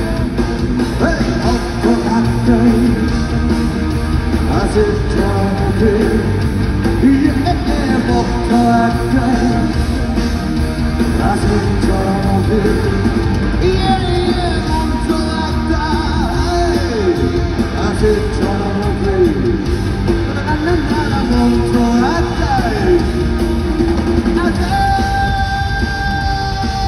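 A rock band playing live, with guitar and a gliding, bending melody line and some singing over it.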